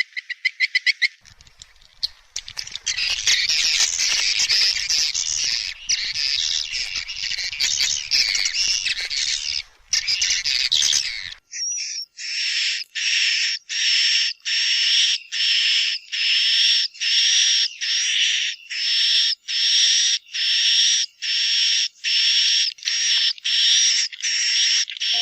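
Recorded edible-nest swiftlet calls played as a swiftlet-house lure sound: a quick rattling trill, then a dense chattering of many birds until about eleven seconds in, then a steady string of buzzy chirps, about one and a half a second.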